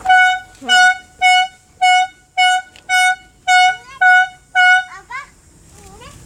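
An electronic horn beeping one steady, high note over and over, nine short beeps about two a second, then stopping about five seconds in.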